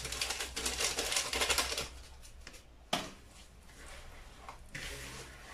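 Hands rubbing and mixing a crumbly semolina and coconut dough in a bowl: a dense rustling for about two seconds, then a sharp knock about three seconds in and quieter rubbing after it.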